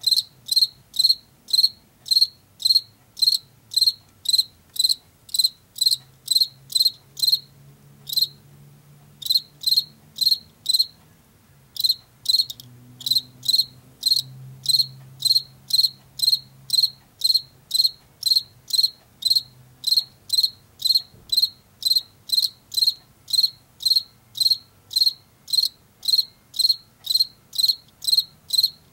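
Male field cricket chirping: a shrill, evenly spaced pulse of about two chirps a second, made by rubbing its forewings together in its calling song. The chirping breaks off twice for about a second before resuming.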